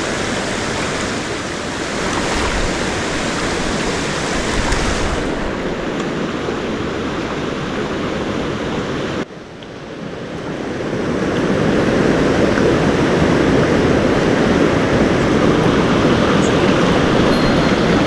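Mountain stream water rushing steadily over rocks. About nine seconds in the sound cuts off abruptly, then builds back up to a louder, deeper rush of water.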